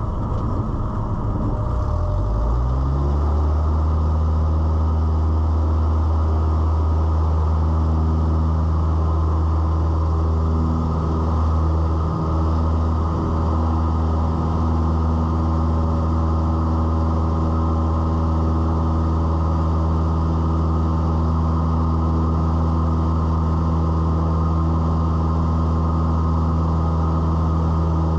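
Cessna 172's piston engine and propeller, heard inside the cockpit. The pitch rises over the first few seconds as power comes up for takeoff, then the engine runs steadily at full power through the climb.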